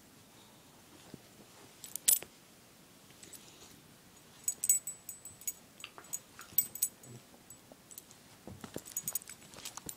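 Metal collar tag and ring jingling in short clinking bursts as a cat and a dog wrestle: once about two seconds in, then a flurry from about four and a half to seven seconds and again near the end.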